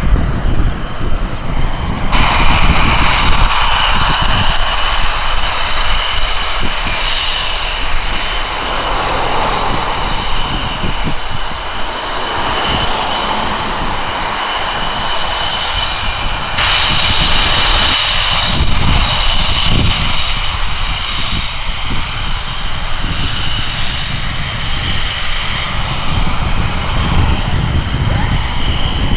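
Panavia Tornado jet running loud: a broad roar with a steady high turbine whine from its twin RB199 engines. The sound shifts abruptly twice, about two seconds in and just past the middle.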